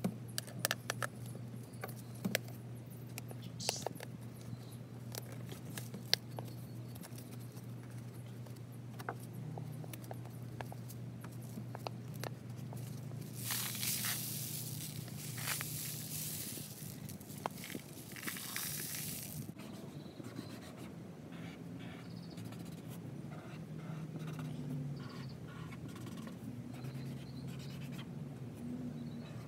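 Handling of paper, tape and a cardboard tube while a rainstick is put together: small clicks and rustles, then a longer noisy tearing scrape in the middle, typical of tape pulled and pressed on. Near the end a felt-tip marker squeaks faintly across paper, over a steady low hum.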